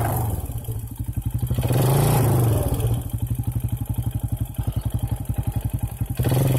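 Arctic Cat 450 XC ATV's single-cylinder engine idling with an even putter, then revving up sharply near the end as the machine pulls away.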